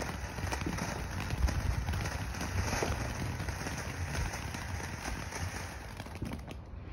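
Ground fountain firework hissing and crackling as it sprays sparks, thinning out near the end as it burns down.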